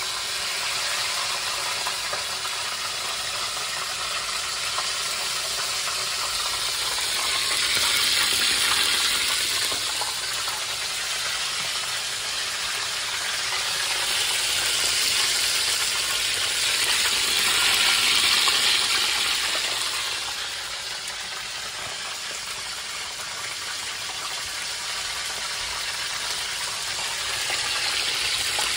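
Beer-battered cod frying in a shallow pan of hot oil: a steady, dense sizzle that swells louder twice in the middle stretch.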